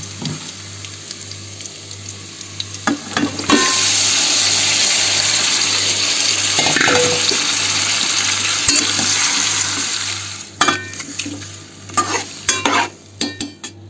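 Chopped onions sizzling in hot oil in a pot. About three and a half seconds in, marinated chicken is tipped in and a much louder frying sizzle starts at once and holds for several seconds. Near the end a metal spoon scrapes and clinks against the bowl.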